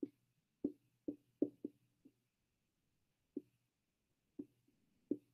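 Dry-erase marker tapping against a whiteboard while words are written: about eight faint, short, dull taps at irregular intervals, with a pause of about a second near the middle.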